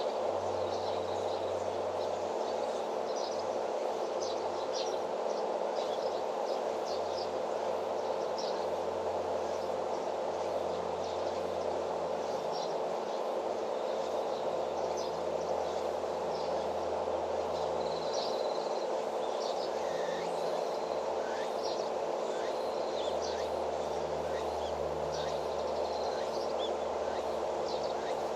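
Steady outdoor ambience: a constant rushing noise with a low hum and a steady mid-pitched tone, and short, high chirps of small birds scattered throughout.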